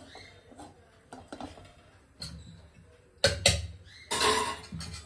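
Metal kadai being handled and set on the stove's burner grate: faint clicks, then two sharp clanks about three and a half seconds in, followed by a short scraping rattle.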